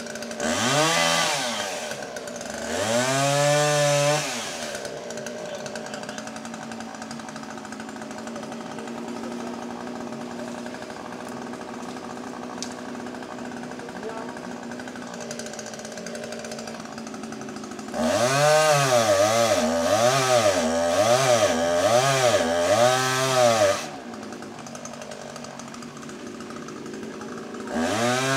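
Two-stroke chainsaw engine revved in repeated bursts, its pitch climbing and dropping: twice in the first few seconds, then about five times in quick succession later on. Between the bursts it idles steadily at a lower pitch.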